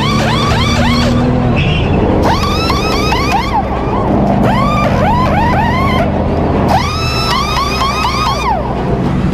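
Pneumatic impact wrenches (pit guns) spinning lug nuts off and on a NASCAR stock car's wheel during a pit stop: short whines that rise and fall in quick runs of several, one after another, over a steady low hum.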